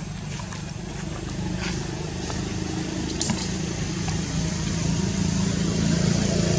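A motor vehicle's engine running steadily and growing louder as it comes closer, with a sharp click about three seconds in.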